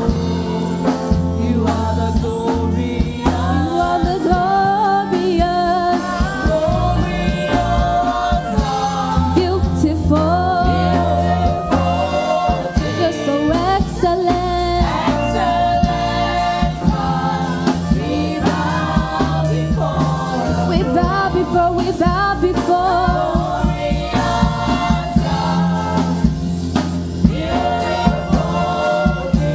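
Praise team singing a gospel worship song with band accompaniment: a group of voices over a steady bass line and a regular beat.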